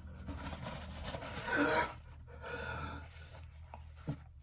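A person sniffing through a stuffed-up nose: two noisy sniffs, the first, about a second and a half in, the louder.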